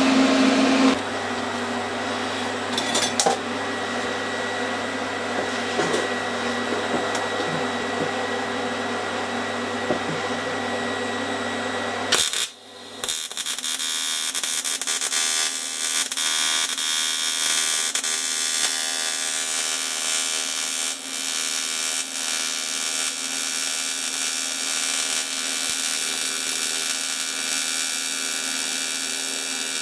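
Steady hum of the welding machine and its cooling fan; about twelve seconds in it cuts abruptly to a TIG arc running, a steady hiss with an electrical buzz, as silicon bronze filler is fed onto a cracked cast iron casting.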